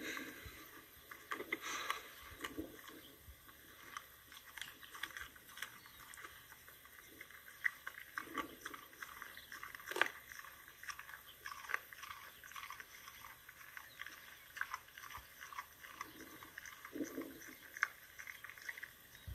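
A dog chewing on a whole rabbit carcass: irregular clicks and crackles of eating, with one sharper snap about halfway through.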